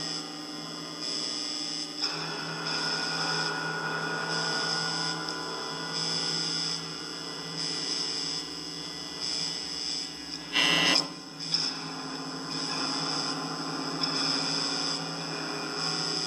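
A steady electrical hum made of many held tones, swelling and easing in stretches. A brief, louder, rough noise cuts in about ten and a half seconds in, with a smaller one a moment later.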